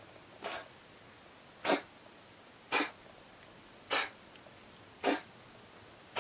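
A cat coughing over and over: short, noisy coughs in a steady series, about one a second.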